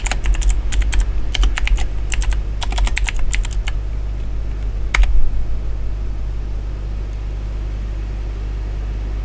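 Computer keyboard typing: a quick run of keystrokes for about four seconds, then one harder single keystroke about five seconds in, over a steady low hum.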